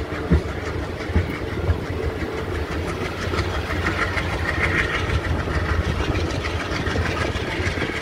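Passenger train rolling slowly, heard from an open coach door: a steady diesel engine drone and coach rumble, with wheels knocking over rail joints a few times in the first two seconds.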